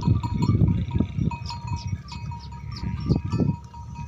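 A herd of water buffalo on the move: a small bell rings over and over above a loud low rumble, which eases off after about three and a half seconds.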